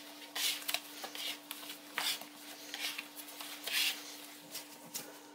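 Plastic dough scraper and hands scraping and pressing wheat starch dough on a worktop: short, irregular rasping scrapes, over a faint steady hum.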